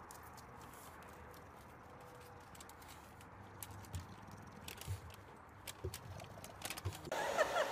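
An English bulldog's paws and claws tapping on concrete and wooden porch steps: faint, irregular clicks and soft thumps from about halfway in. Near the end it cuts abruptly to a louder run of quick squeaky chirps.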